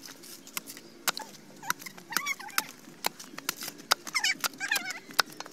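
Handmade billhook chopping and shaving the husk of a young green coconut: about a dozen quick, sharp chops at an uneven pace. Several high, wavering whines sound between the chops, mostly in the second half.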